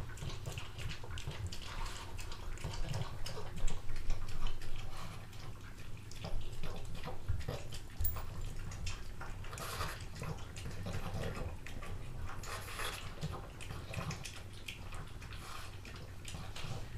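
A pug eating watermelon flesh, with irregular wet chewing and smacking sounds and a few louder bursts.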